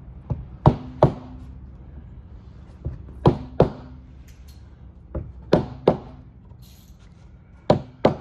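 Mallet blows on a wood chisel cutting into timber: sets of three knocks about every two and a half seconds, each a light tap followed by two hard blows, some leaving a brief low ring.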